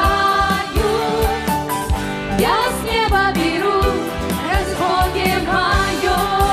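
Upbeat live worship-band music: female voices singing over keyboard and a steady drum beat of about two hits a second.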